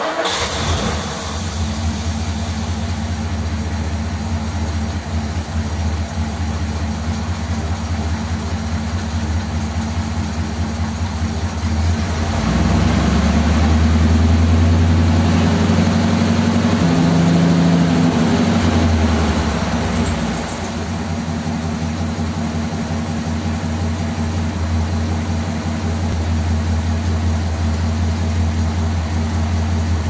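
1957 Ford Thunderbird's Y-block V8 running steadily at idle while its carburettor is adjusted by hand. From about twelve seconds in the revs rise and hold for several seconds, then drop back to idle about twenty seconds in.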